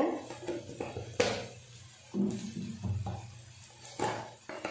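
Kitchen utensils knocking and clinking a few separate times while spices are added to a pan, over a low steady hum.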